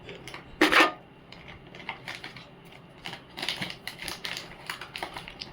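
Small plastic cosmetic items, a lip-gloss tube among them, being handled: a run of light clicks and clatter, with one louder short knock under a second in.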